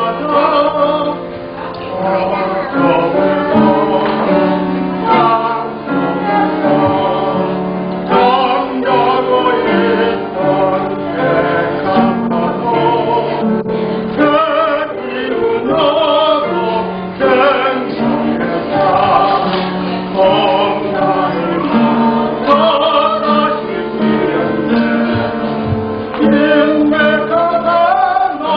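A group of men's and women's voices singing a Christian praise song together.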